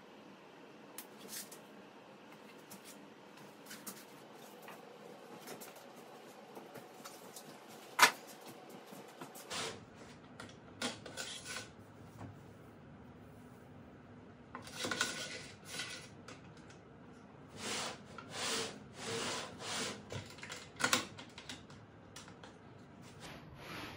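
Handling noises at a table saw crosscut sled, the saw not running: a stop block sliding and scraping along the fence's metal measuring track, with scattered clicks and one sharp knock about eight seconds in. Several longer scrapes come in the second half.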